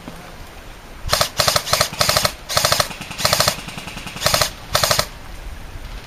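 Airsoft rifle firing on full auto in about eight short bursts, starting about a second in: a fast rattling whirr with a buzzing tone in each burst.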